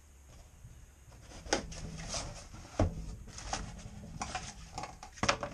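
Packing tape on a cardboard box being slit and the box flaps pulled open: cardboard scraping and rustling, with three sharp knocks along the way.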